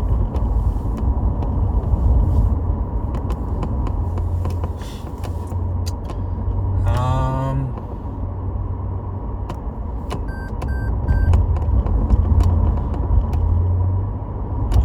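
Steady low rumble of a running car, with a short pitched hum about seven seconds in and three short beeps a few seconds later.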